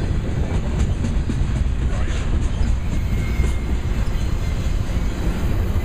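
Double-stack container well cars rolling past on the rails: a steady low rumble of steel wheels on track, with a few light clicks.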